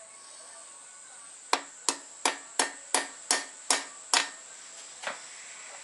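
Hammer striking eight quick, sharp blows, about three a second, then one lighter tap a second later, driving a freezer-chilled oil feed blank into the rear oil feed hole in the deck of an RB25DET cast-iron block until it sits just below the deck.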